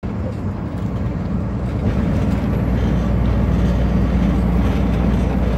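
Truck engine and tyre noise heard from inside the cab at highway speed, a steady low rumble that grows louder about two seconds in as the truck drives into a road tunnel.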